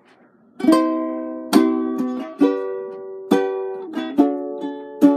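Ukulele strummed in chords, starting about a second in. Strong strokes come a little under once a second, with lighter strokes between, each chord ringing on.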